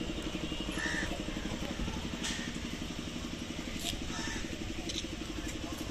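An engine running steadily with a rapid, even pulse.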